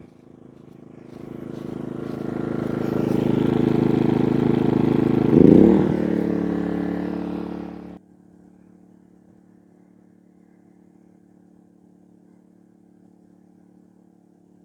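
Genmax GM3500iAED inverter generator's 145cc four-stroke engine speeding up as eco mode is switched off, building over a couple of seconds to a loud steady run, with a short sharp rising sound in the middle. About eight seconds in it drops suddenly to a much quieter steady hum.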